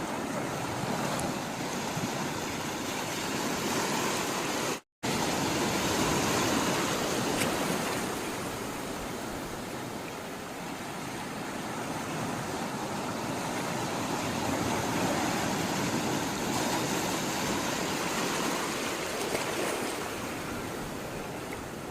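Sea water rushing and washing, a steady noise that swells and eases slowly over several seconds. It cuts out for a split second about five seconds in.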